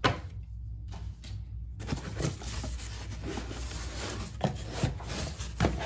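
Hands handling packaging in an open cardboard box: rustling of the packing foam and cardboard, with a handful of light knocks and taps.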